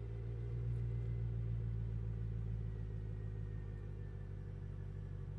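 BMW E9X M3's 4.0-litre S65 V8 idling steadily through a Megan Racing catless exhaust system.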